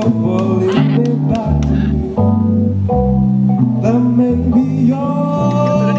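Background music: a song with guitar, a bass line and singing.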